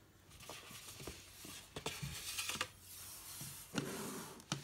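Handling noises from a plastic Blu-ray case on a desk: soft rustling and scraping with a scatter of light taps and clicks, louder in the second half.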